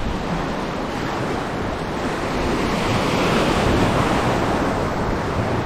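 Rough sea waves surging and breaking, one swell building to its loudest about halfway through and then easing off, with wind on the microphone.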